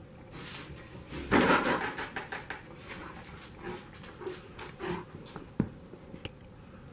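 Newfoundland dog breathing and snuffling close up in a run of short, irregular noisy strokes, loudest about a second in. Two sharp clicks come near the end.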